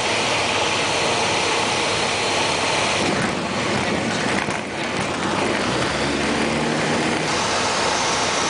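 Cabin noise of a Tupi (Piper PA-28-180) light aircraft: its four-cylinder Lycoming O-360 piston engine and propeller running steadily, heard from inside the cockpit. The tone shifts slightly about three seconds in and again near seven seconds.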